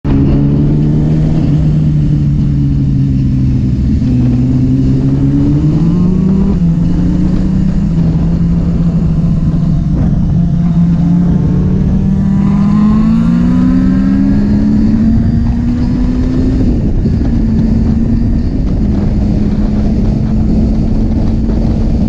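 Honda CBR600RR's inline-four engine heard from the rider's seat, pulling up through the revs and dropping at a gear change twice, about six seconds in and again near sixteen seconds, then holding steady, with constant wind noise on the microphone.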